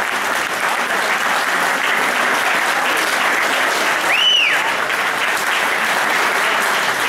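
Crowd applauding steadily. About four seconds in, a single short whistle rises and falls.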